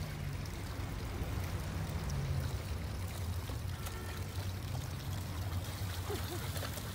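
Spring water running steadily from a small spout into a hollowed-log trough, a continuous trickling pour.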